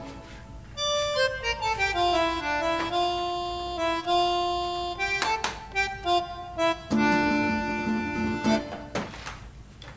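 Background music: a melody of held notes that steps downward, then moves up and down in short phrases. A few sharp clicks break through it, the loudest a little past halfway.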